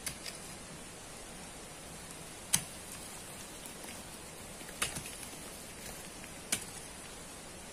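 A long-handled digging tool striking into a bank of sand and gravel: three sharp strikes, about two seconds apart, the first the loudest, over a steady hiss.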